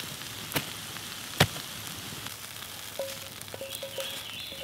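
Wood campfire crackling and hissing, with two sharp pops about half a second and a second and a half in. From about three seconds, a wooden spatula scrapes a cast-iron skillet in short squeaky strokes.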